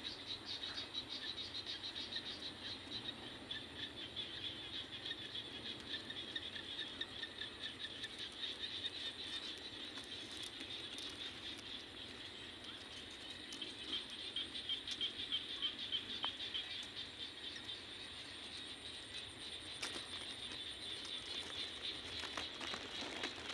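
Night chorus of calling insects, crickets or frogs: a steady, fast, high-pitched trilling, with a few faint clicks.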